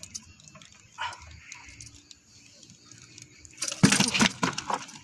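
A landed giant snakehead (toman) thrashing on the wooden floorboards of a boat, with light clicks and rattles, then a loud burst of slaps and knocks near the end.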